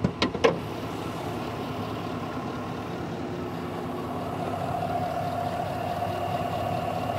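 A few clicks and knocks in the first half second, then the Suburban's 5.3 L V8 engine idling as a steady hum, growing louder about four seconds in as the hood is raised over the engine.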